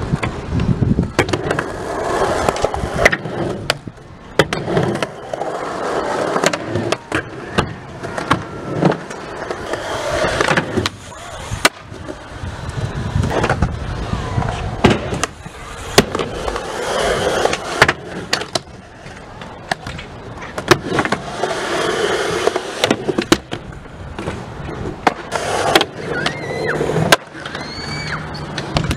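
Skateboards rolling on concrete, the wheels rumbling as they speed up and slow down, broken by many sharp clacks and slaps of the boards hitting the ground and obstacles.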